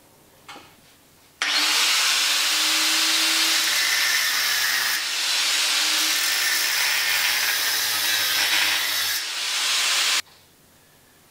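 Angle grinder with a cut-off disc cutting into a short length of 42 mm water pipe clamped in a vise, trimming a cut for an exhaust manifold collector. The grinding starts abruptly about a second and a half in, runs steadily for about nine seconds with two brief dips, and stops suddenly.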